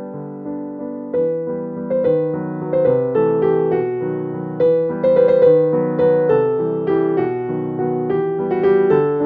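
Background piano music: notes that start sharply and fade, one after another.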